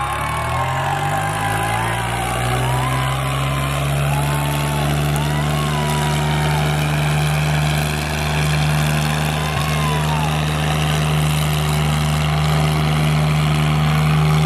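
Tractor diesel engines running hard at high revs as two tractors chained back-to-back pull against each other in a tug-of-war. The engine note rises over the first second or so, then holds steady under full load, with faint shouting over it.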